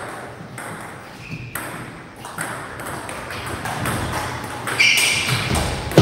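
Table tennis rally: the plastic ball clicking off the paddles and the table in a quick back-and-forth. It gets louder near the end.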